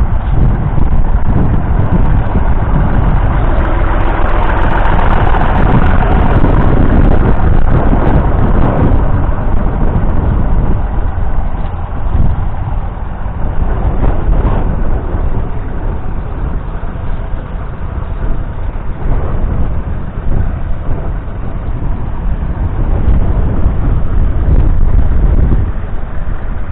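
Vintage farm tractor engine running steadily under way, with a low rumble throughout; it swells louder about four seconds in and eases off again after about nine seconds.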